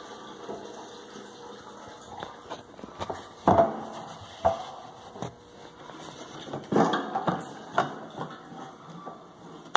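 A handful of clanks and knocks from a gas can being handled at a tractor's fuel tank during refuelling, the loudest about a third of the way in.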